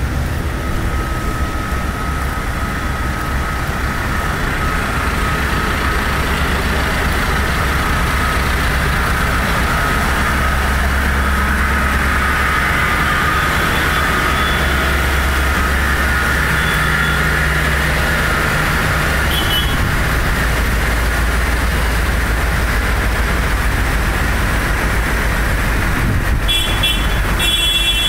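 Diesel engines of a slow convoy of large farm tractors running steadily in a city street, a constant low drone. A short run of high-pitched tones comes near the end.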